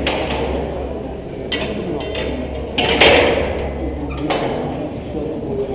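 A few metal clanks and rattles from a mine shaft lift's gates and cage, the loudest about three seconds in, over a steady low hum.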